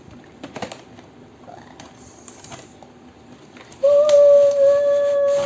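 Light clicks and rustles of a toy box's packaging being handled, then a steady high tone, the loudest sound here, held for about a second and a half near the end.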